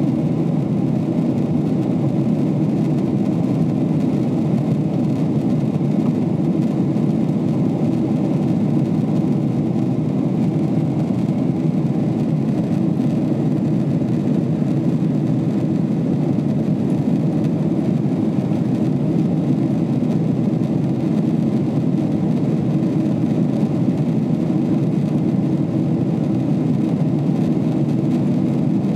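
Steady cabin roar of a Boeing 777-300ER climbing out, its GE90 engines and rushing airflow heard from a window seat beside the wing. The sound is a deep, even rumble with no change in level.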